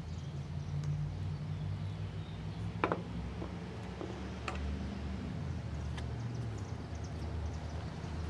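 A few light, sharp clicks and taps from an X-Acto knife and a glue syringe being handled against a veneered plywood chair back, over a steady low hum.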